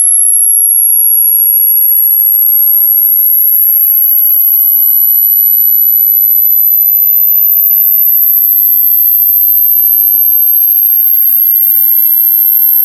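A single loud, very high-pitched pure electronic tone, gliding slowly and steadily upward in pitch.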